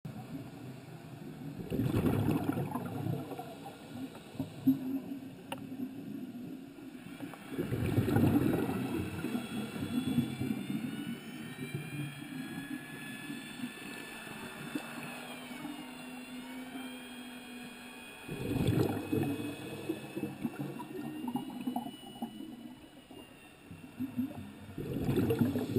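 Muffled underwater noise with four rumbling bursts spaced several seconds apart. Between the bursts a faint high whine glides in pitch, dipping and rising again midway.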